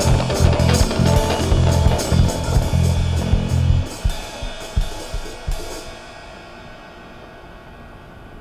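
A rock band's song ending: drums, cymbals and bass with guitar play out, the bass stops about four seconds in, a few last drum hits and cymbal strikes follow, and then only a faint steady hiss remains.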